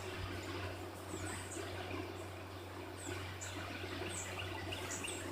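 Outdoor ambience of short, high-pitched bird chirps repeating every half second to a second, over a steady low hum.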